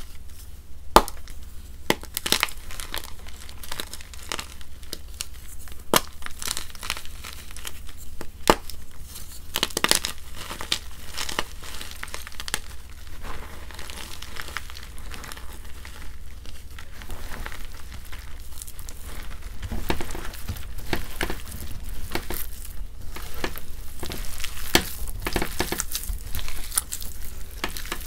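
Gym chalk blocks (Chalkness Monster and MagKing) being crumbled by hand in water with charcoal powder: wet crunching and crackling as the pieces break apart and are squeezed, with frequent sharp snaps.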